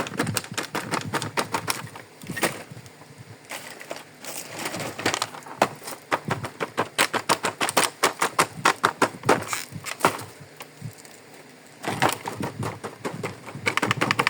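Small plastic toy kitchen pieces being handled and unpacked, with runs of quick clicks and taps and a quieter pause about two-thirds of the way through.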